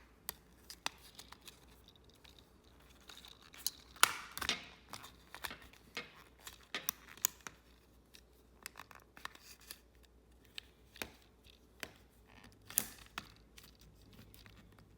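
Plastic case of a Logitech Harmony 650 remote being pried apart: scattered sharp clicks and cracks as its snap clips release, with some scraping, loudest about four seconds in and again near the end.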